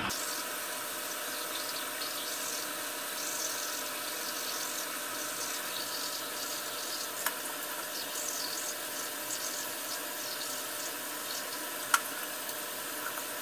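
Bathroom tap running into the sink, a steady rush of water, while a toothbrush scrubs. A couple of small clicks fall about seven and twelve seconds in.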